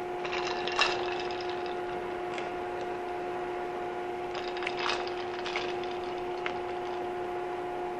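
Peaches being transferred with a slotted spoon into a glass bowl of ice water: short clinks and clatter of ice and spoon against the glass, with a splash, about a second in and again around five seconds in. A steady hum runs underneath.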